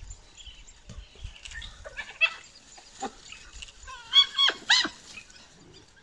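Yelping and squealing calls as African wild dogs harass spotted hyenas: a few short calls about two and three seconds in, then a louder run of squeals around four to five seconds in, one sliding sharply down in pitch.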